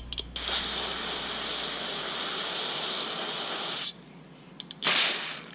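Aerosol cleaner sprayed through a red extension straw into a Weber carburetor's accelerator-pump squirter nozzle to flush its passage: a brief spurt, then a steady hiss of about three and a half seconds that cuts off suddenly, then another short spurt near the end.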